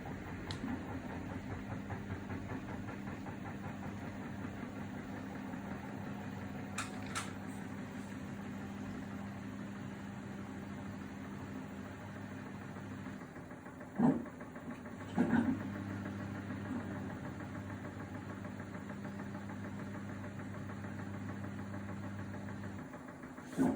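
Samsung WW80TA046AX washing machine turning its drum with a steady motor hum for about thirteen seconds, then a pause with a couple of knocks as the drum stops and reverses, and the hum again until another knock near the end. This is the machine its owner says makes a horrible noise.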